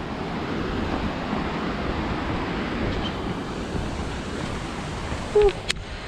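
Steady rush of water from a mountain waterfall and its stream. A brief voice sound and a sharp click come near the end.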